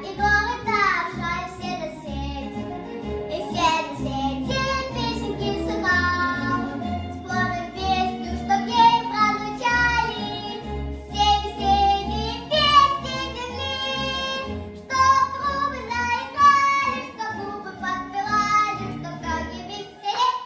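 A six-year-old girl singing a Russian children's song over instrumental accompaniment with a steady bass pulse.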